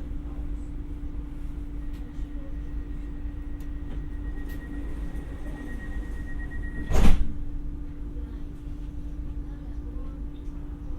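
Inside an X60 electric commuter train: a steady low rumble with a constant hum, a faint high whine for a few seconds, then one loud sharp thump about seven seconds in.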